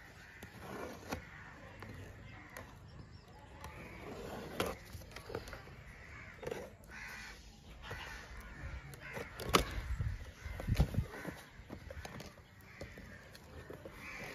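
Cardboard box being opened by hand: packing tape peeled off and flaps pulled back, with rustling, scattered clicks and a run of louder knocks and thumps about two-thirds of the way through. Birds cawing in the background.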